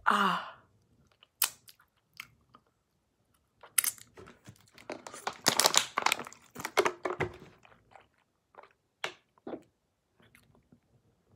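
Mouth sounds of chewing candy chunks, then gulps of water from a plastic bottle in the middle, with scattered clicks.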